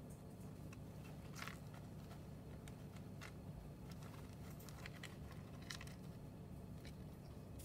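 Faint, scattered crinkling and rustling of tissue-paper bedding as a hamster digs and tugs at it, over a low steady hum.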